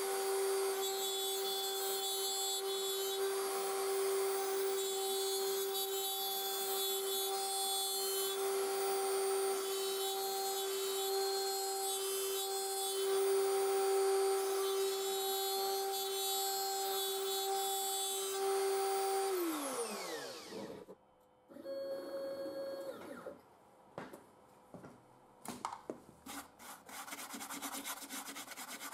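Router spindle of a homemade CNC machine running at a steady pitch while its end mill cuts letters into a wooden board. About two-thirds of the way through it is switched off and its pitch falls quickly as it spins down. A hand then rubs and brushes the sawdust off the board, with scattered light knocks.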